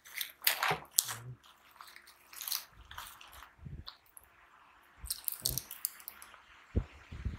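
Packaging being handled and opened: scattered crinkles, clicks and a few light knocks of plastic and cardboard.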